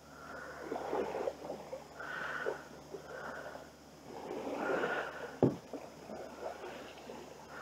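Canoe paddle strokes: soft swishes of the paddle through the water about once a second, with a single sharp knock about five and a half seconds in.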